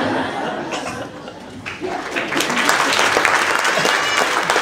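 Audience applause, swelling into dense clapping about two seconds in.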